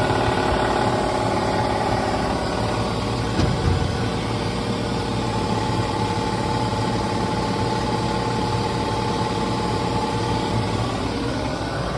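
Steady hum of running shop machinery, with several steady tones over it and one brief knock about three and a half seconds in.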